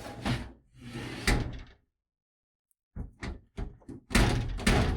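Steel file-cabinet drawer being slid in and out of a metal tool box side locker, clattering and banging against its stop. Two spells of metal knocks with about a second of silence between them, the second starting with a few short taps and ending louder.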